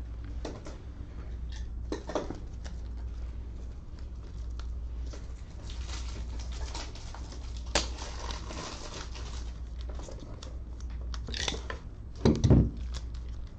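Trading cards and plastic card holders being handled and sorted: rustling with scattered light clicks, one sharper click midway and a brief louder sound near the end.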